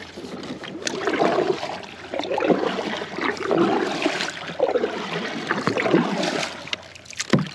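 Kayak paddle strokes in river water: irregular splashing swishes with water dripping off the blades, and a sharp knock near the end.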